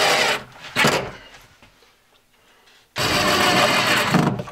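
Power drill driving screws through a metal ball-bearing drawer slide into a wood spacer. There are three runs: a short one at the start, a brief burst about a second in, then a longer run of about a second and a half from about three seconds in.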